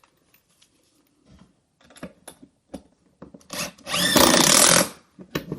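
Power drill driving a screw into the wooden lid of a bluebird nest box: one loud burst of about a second, a little past the middle, its motor pitch rising then falling. It is preceded and followed by light clicks and taps from handling the screw and the wood.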